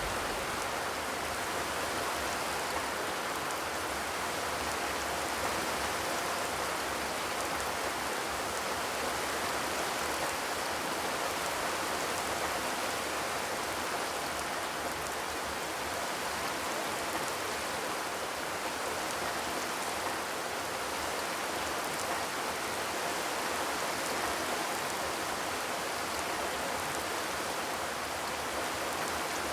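Steady rain falling on a zinc (corrugated metal) roof, an even patter with no thunder.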